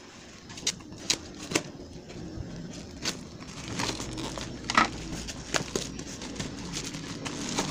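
Scissors snipping through the plastic wrapping of a parcel, a handful of sharp snips, then the plastic wrap crinkling as it is pulled back off the cardboard box, getting louder about halfway through.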